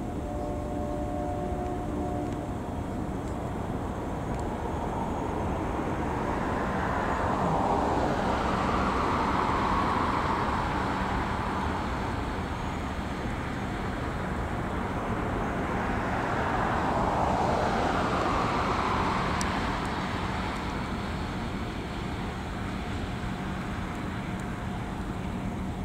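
Road traffic: two vehicles pass one after the other, each swelling up and fading away, over a steady background hum.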